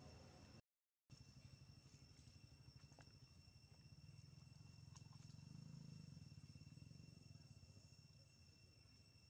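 Near silence: faint outdoor ambience with a low rumble and a thin, steady high whine, broken by a brief dropout about half a second in.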